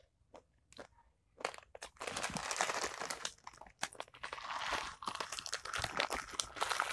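A foil snack packet crinkling. Only a few small clicks for the first second or so, then steady rustling and crunching from about two seconds in as the packet is tipped up and the crumbs are poured into the mouth.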